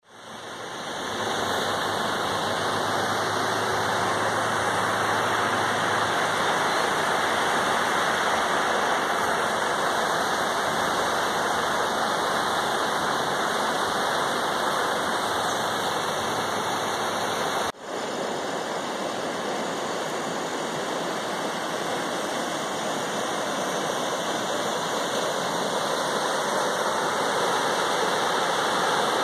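Swollen river in flood rushing past: a steady, even rush of fast, muddy floodwater. There is a brief dropout about two-thirds of the way through, where one clip cuts to the next.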